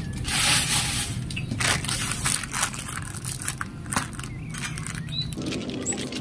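Thin clear plastic bag crinkling and rustling in irregular bursts as its knotted top is worked open by hand. The loudest burst comes about half a second in.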